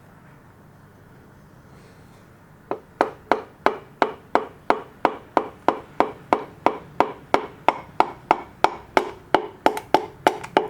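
Even, repeated taps, about three a second, starting almost three seconds in: a piston being tapped down into the cylinder bore of a Nissan RB26 engine block.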